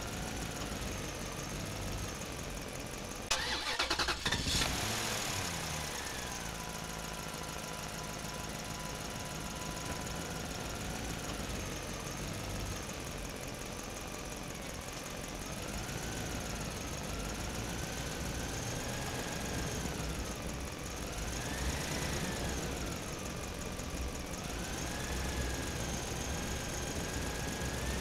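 Vehicle engine sound running steadily, its pitch wavering up and down like an engine being revved, with a brief loud burst of noise about three to four seconds in.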